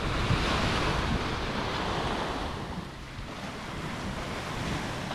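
Small waves breaking and washing up a sandy beach, with wind buffeting the microphone. The surf eases off about three seconds in, then builds again near the end.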